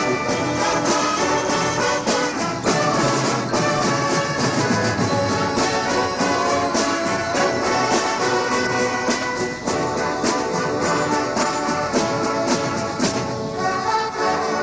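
Marching band playing a tune on brass instruments over a steady beat of drums and cymbal crashes.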